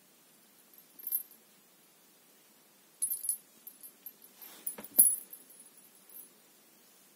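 Small bell on a feather wand cat toy jingling in three short bursts as the toy is jerked about, with a louder knock and rustle about five seconds in.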